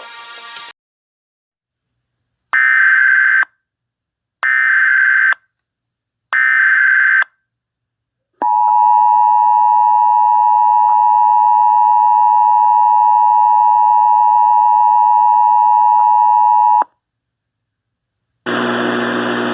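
Emergency Alert System tones: three identical warbling SAME data-header bursts about a second long each, then the steady EAS attention signal, the two-tone 853 and 960 Hz pair, held for about 8 seconds and cut off sharply. A tail of electronic music ends just under a second in, and a hiss of noise starts near the end.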